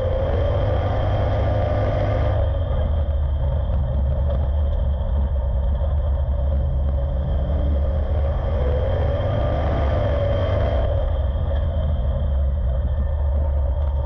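Street stock race car's V8 engine heard from inside the cockpit, running hard with a deep steady rumble. The pitch rises on the throttle and the engine note drops back sharply about two seconds in as the car lifts for a turn. It climbs again and drops back once more near eleven seconds.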